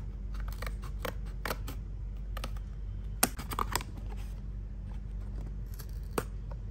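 Scissors snipping through a thin cardboard box in a series of short cuts over the first couple of seconds, then the cardboard crackling with a sharp snap about three seconds in as the cut box is pulled open.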